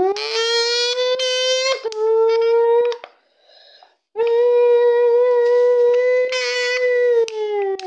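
A cut and folded small drink can blown into like a horn, meant to mimic a racing car. It gives two long, steady horn-like notes: the first rises in pitch as it starts and stops after about three seconds, the second comes in about a second later and sags in pitch near the end.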